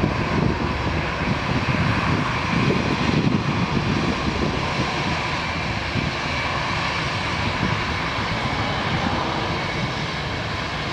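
Rolls-Royce Trent 7000 turbofans of an Airbus A330neo running steadily as the airliner taxis: a constant engine roar with a faint steady whine over it.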